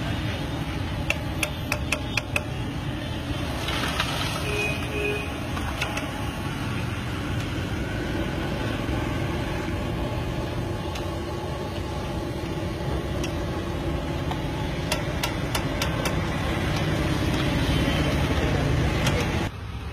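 Steady street traffic noise, with scattered sharp clicks and rattles of crisp fried potato chips being tipped into a steel bowl.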